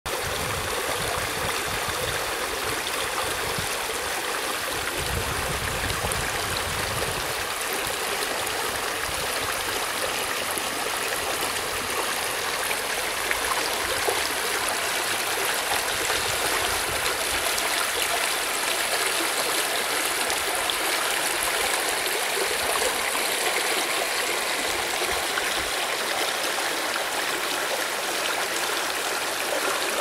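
Shallow rocky stream flowing over stones and through small riffles: a steady rushing and babbling of water.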